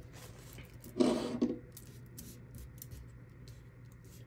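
Tarot cards being handled and slid across a tabletop: faint scrapes and light clicks, with one louder brief rustle or tap about a second in.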